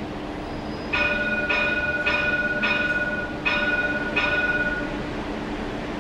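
CAF Urbos 3 light rail tram's warning gong struck about six times, in a run of four and then two, each strike ringing on, over the tram's steady hum, as it gets ready to depart.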